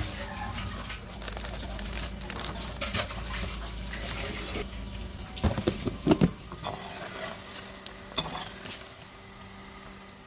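Breaded bread pockets deep-frying in hot oil, a steady sizzle with crackling. A few louder knocks come about halfway through.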